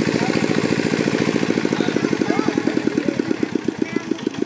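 A small engine running steadily with a rapid, even beat, about eight beats a second, easing slightly towards the end.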